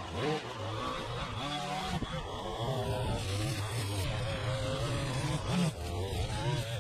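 Gas-powered string trimmer running steadily, its engine pitch wavering as the line cuts grass along a concrete edge.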